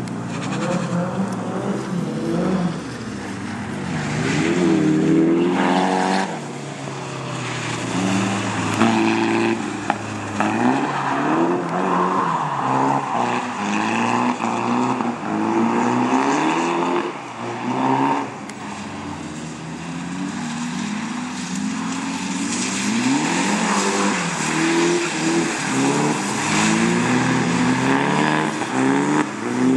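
Nissan Silvia and 180SX drift cars' engines revving up and dropping back again and again, rising and falling in pitch every second or two as they slide through drifts on wet pavement.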